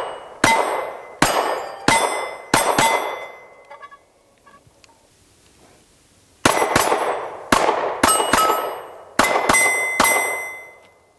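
9mm Walther PPS M1 pistol fired in quick strings at steel plate targets, each shot followed by the ring of struck steel. About five shots, a pause of about three seconds, then about eight more.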